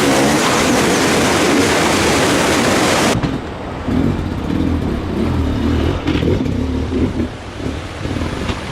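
A loud, even rushing noise that cuts off suddenly about three seconds in, followed by an enduro motorcycle engine revving up and down.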